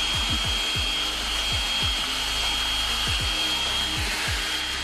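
Cordless drill spinning a paddle mixer through drywall joint compound in a bucket, running steadily with a constant high whine.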